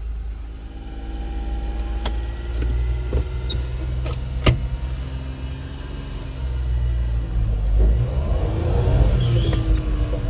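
1994 Suzuki Carry kei truck's small three-cylinder engine running as the truck drives off, heard from inside the cab, getting louder in the second half. A sharp click sounds about four and a half seconds in.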